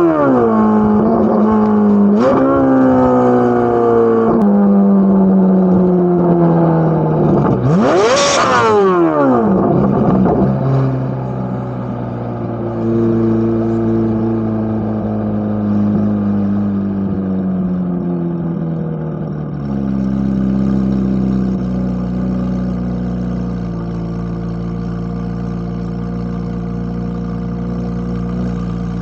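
Corvette C8 Z06's naturally aspirated flat-plane-crank V8. It gives a short rev about two seconds in, then climbs to a high-pitched scream around eight seconds that falls away quickly. After that the engine runs on at slowly falling, lower revs, with a drop near twenty seconds.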